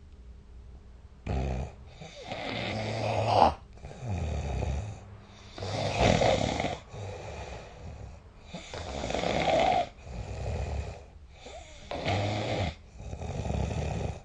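A sleeping person snoring: after about a second of quiet, rough rattling snores come with each breath, a louder snore followed by a softer one, in a slow rhythm of about one breathing cycle every three seconds.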